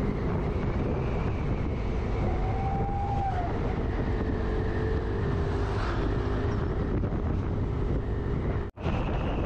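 Yamaha Aerox 155 scooter running at steady cruising speed, its engine hum mixed with wind and road noise. The sound drops out for an instant near the end.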